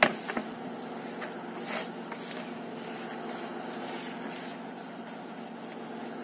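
A steady low mechanical hum runs under the soft swishing and rustling of hands mixing dry powder in a plastic tub, with a couple of short knocks right at the start.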